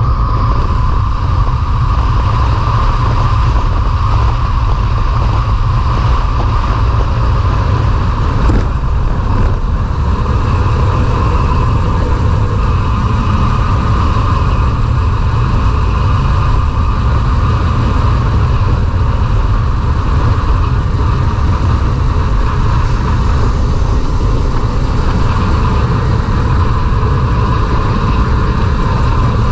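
Wind rushing over the microphone of a camera riding along on a moving road bicycle: a loud, steady rumble that does not let up.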